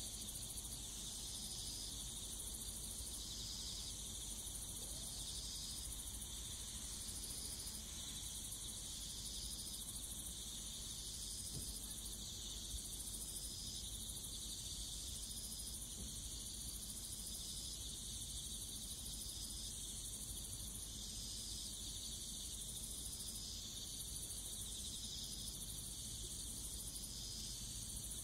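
Insects singing in a steady high-pitched chorus, one voice pulsing about once every second and a half; no train is heard yet.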